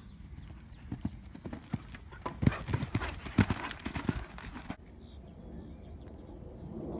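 Hoofbeats of a bay horse moving over a sand arena, a string of dull thuds that grow loudest about two and a half to four seconds in as the horse passes close. A rushing noise runs under the loudest hoofbeats and cuts off suddenly a little before five seconds in.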